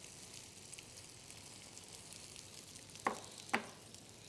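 Faint, steady sizzling as sauce is poured over a hot oven-roasted chicken in a metal baking tray. Two light clicks come about three seconds in.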